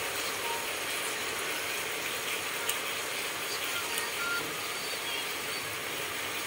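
Steady sizzling hiss of catfish pieces frying in oil in a wok, with a faint click near the middle.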